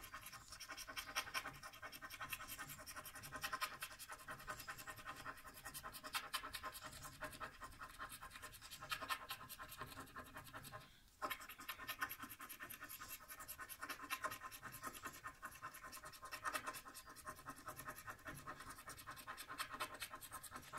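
A coin scraping the silver coating off a paper lottery scratch card in quick, continuous short strokes, with a brief pause about eleven seconds in.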